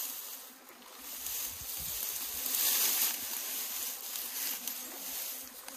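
Ferns and undergrowth rustling as they are grabbed and pulled aside by hand, swelling louder about halfway through.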